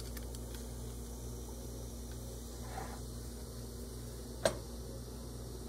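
Steady low hum of room tone with one sharp click about four and a half seconds in.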